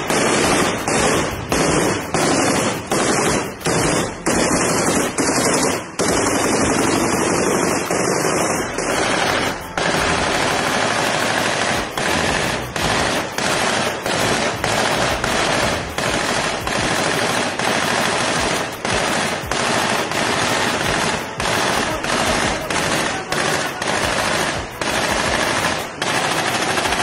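Sustained automatic gunfire: long, nearly continuous machine-gun bursts broken by many short pauses.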